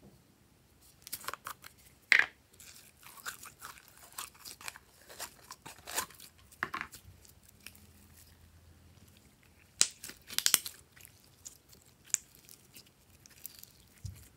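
Glossy purple slime being squeezed out of its plastic tub and stretched and folded by hand, giving irregular sticky pops and clicks. The loudest pops come about two seconds in and around ten seconds in.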